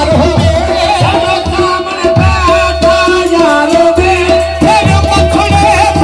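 Live qawwali music: a singer's voice winding up and down over a held harmonium note, with tabla keeping a steady beat.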